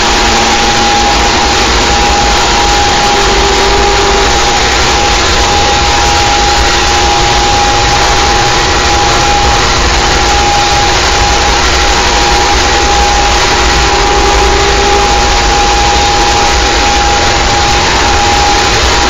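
Harsh noise music: a loud, dense wall of distorted static that hardly changes, with a steady high drone running through it and a deep rumble beneath. A short, lower tone sounds twice.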